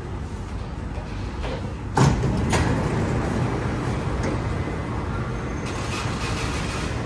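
MRT train doors sliding shut with a loud thump about two seconds in and a smaller knock just after, over the steady running noise of the train at the platform.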